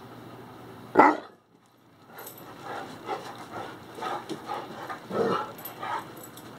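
English Mastiff giving one loud bark about a second in, then a run of short, excited vocal noises, roughly three a second, as he spins in his dance circles.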